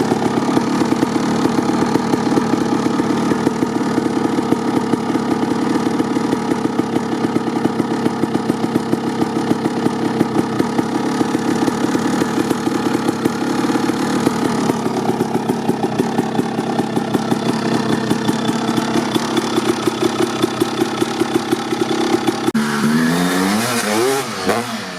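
Single-cylinder two-stroke engine of a 1989 Honda CR250R dirt bike with an FMF Gnarly pipe, running at a steady idle with a regular popping beat. Near the end the steady note breaks off abruptly into pitches sliding up and down, and the sound gets quieter.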